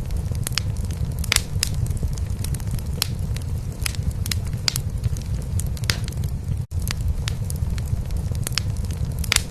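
Wood fire crackling in a fireplace, with irregular sharp pops and snaps, over a steady low purring rumble from a cat. The sound cuts out for an instant about seven seconds in.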